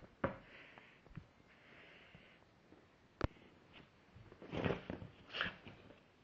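A dog sniffing and moving about, with short breathy sniffs, a few sharp clicks or knocks, and louder scuffling around four and a half and five and a half seconds in.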